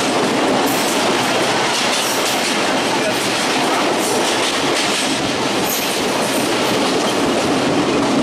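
Betna Express passenger train running on the rails: a steady rumble and clatter of wheels and carriage, with occasional brief high squeaks.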